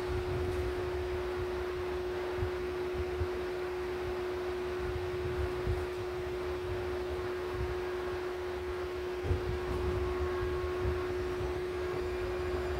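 Inside a light-rail train car: a steady, pure electrical hum over a low rumble and noise. Near the end, a rising whine begins, typical of the traction motors as the train gathers speed.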